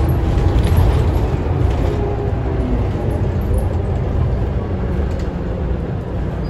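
Scania K320UA articulated city bus heard from inside the cabin while driving: a steady low engine and road drone, easing off slightly in the second half.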